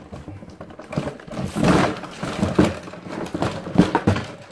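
A toy RC car being pulled out of its cardboard display box: irregular rustling and scraping with a few sharp knocks as the car's body and wheels bump against the box.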